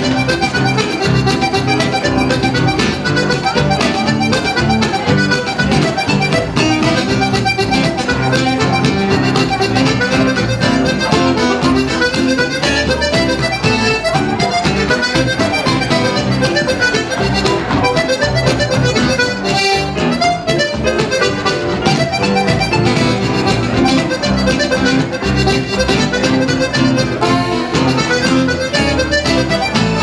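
Lively French-Canadian folk tune played live: a diatonic button accordion carries the melody over strummed acoustic guitar, plucked upright double bass and piano, at a steady, even tempo.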